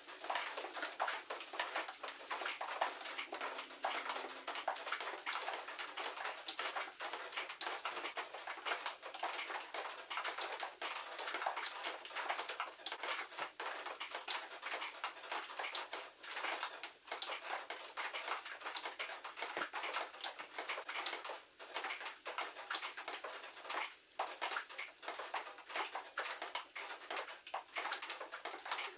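Dense, irregular clicking, scraping and rustling of hands and hand tools working on the Yanmar 155D's cylinder head during reassembly.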